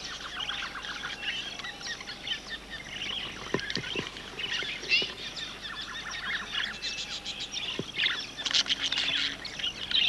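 Wild budgerigars chirping and chattering in a steady run of short high calls, with a thicker burst of calls near the end.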